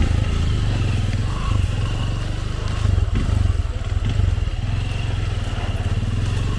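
Trail motorcycle engine running steadily, a low pulsing engine note with no clear revving.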